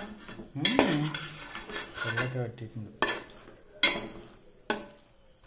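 A perforated steel skimmer ladle stirring rice in a metal pot, scraping through the grains with four sharp knocks against the pot. It falls quiet near the end.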